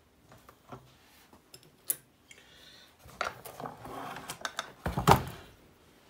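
Plastic housing of a small Hoover canister vacuum cleaner being handled and turned onto its side on a workbench: a few light clicks, then a run of knocks and scraping, with the loudest thump about five seconds in.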